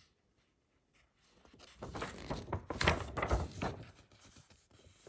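Paper rustling and crinkling, a run of crackles and small clicks lasting a couple of seconds, loudest in the middle, as the printed instruction sheet is handled.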